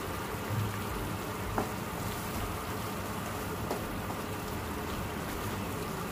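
Chicken curry simmering in a wok, a steady bubbling sizzle, while a wooden spatula stirs it, with a couple of light taps of the spatula on the pan.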